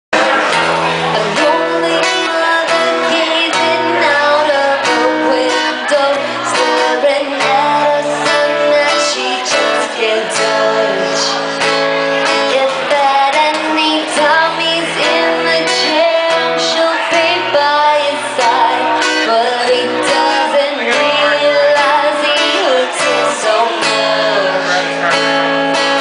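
A woman singing with an acoustic guitar strummed alongside: a live voice-and-guitar duo performing a song.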